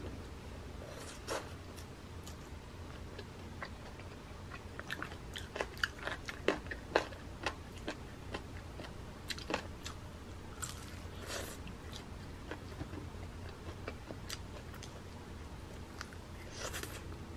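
Close-up chewing and biting into crispy fried chicken pieces from a Kyochon combo, with a run of sharp crunches about five to ten seconds in.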